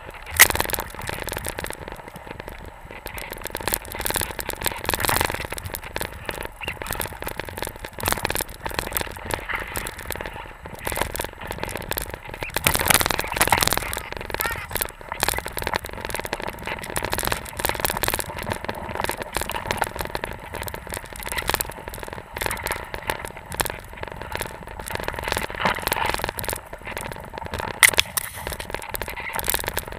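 Deep powder snow spraying against the camera and scraping past it while moving fast through it: a continuous crackling, scraping rustle, full of sharp clicks and knocks, with a loud click about half a second in and another near the end.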